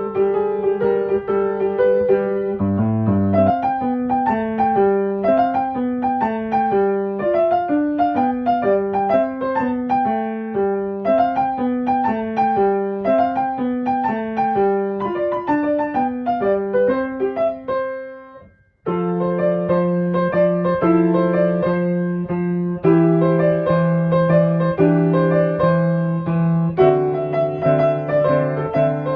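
Background piano music: a melody of separate notes that fades out about two-thirds of the way through, after which a different piano piece begins.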